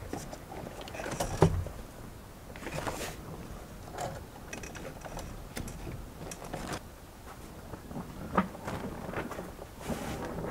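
Irregular knocks and scrapes of a rusty metal frame being handled on plastic sheeting, with the sharpest knock about a second and a half in and another near the end.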